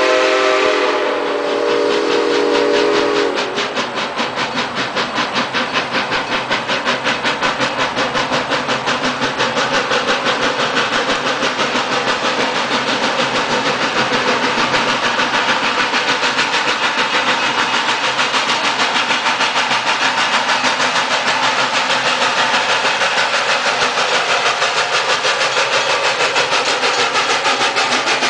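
Steam locomotive 0-6-0 #7470's chime whistle sounds a multi-note chord that cuts off about three seconds in. Then comes the engine's exhaust chuffing in an even, quick beat, growing louder over the next several seconds as the locomotive works its train closer.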